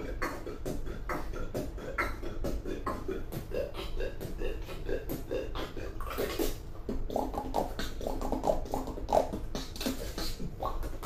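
Beatboxing: a fast vocal beat of mouth clicks and kick- and snare-like hits, with short hummed notes worked in during the second half.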